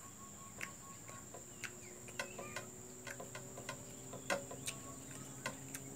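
Irregular small clicks and crackles of a person eating crispy fried Indian mackerel and rice by hand, fingers picking at the fish on a plate. A steady, high-pitched chirring of insects runs throughout.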